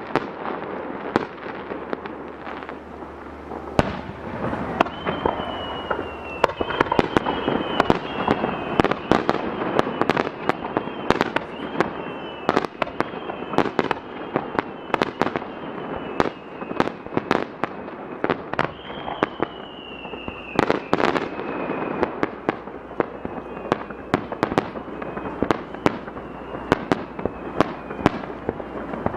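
Aerial fireworks shells launching and bursting in quick succession, a dense string of bangs and cracks. High whistles slide down in pitch about five seconds in and again near twenty seconds.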